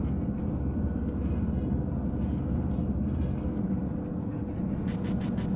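Steady low rumble of a vehicle driving, road and engine noise heard from inside the cabin, with a faint steady hum. Near the end comes a quick run of about four light clicks.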